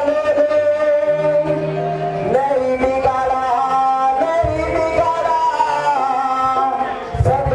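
Qawwali music: a sung melody in long held notes over instrumental accompaniment, with a few low drum strokes.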